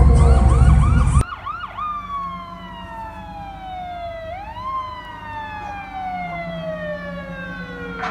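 Fire truck siren. It is loud at first with a fast yelp, then cuts off abruptly. A quieter siren follows, winding slowly down in pitch, rising quickly once about halfway through, and winding down again.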